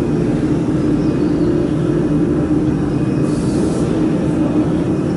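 Steady droning hum of running workshop machinery, with a brief hiss about three seconds in.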